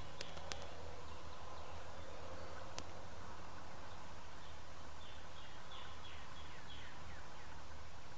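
Quiet outdoor ambience with a steady low hum. About five seconds in, a songbird gives a run of short high whistles that slur downward, and a few sharp clicks come in the first few seconds.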